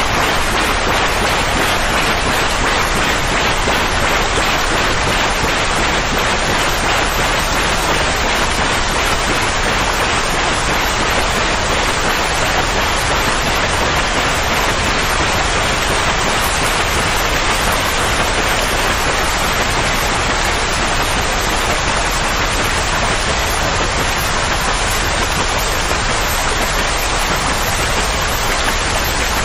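Steady, unchanging rushing hiss of continuous noise, rain-like in character, with no breaks or distinct events.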